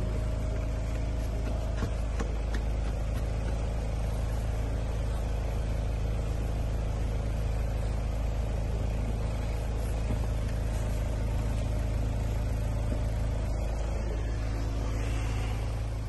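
Steady low mechanical hum, even throughout with no distinct events.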